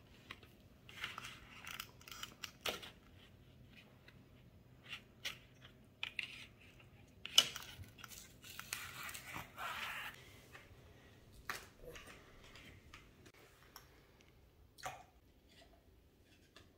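Scissors snipping through a thin glove over a block of ice, then the glove crinkling and rustling as it is peeled off the frozen ice hand, with scattered faint clicks and one sharp knock about seven seconds in.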